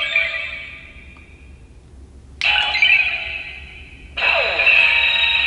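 Sailor Uranus Transformation Lip Rod Proplica toy playing its transformation-mode sound effects without the character voice: a shimmering electronic chime that fades away, a second burst about two and a half seconds in, and a third about four seconds in that opens with a falling sweep, like the World Shaking attack.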